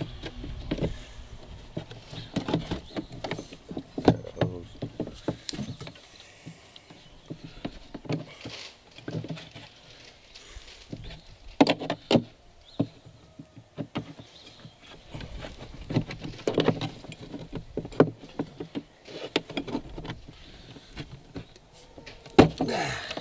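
Irregular clicks, knocks and light rattles of hand tools and metal engine parts being handled as a small gas engine is worked loose inside an RC boat hull.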